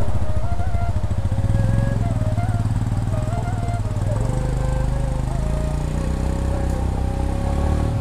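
Motorcycle engine running, its revs climbing in the second half.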